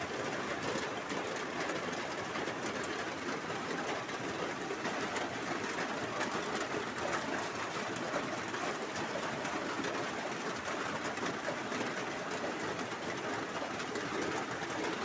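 Heavy storm rain pouring steadily, a dense even hiss of rain with fine pattering.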